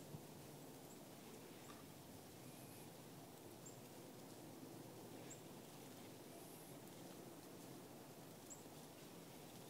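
Near silence: quiet outdoor ambience with a few faint, short, high chirps every second or two.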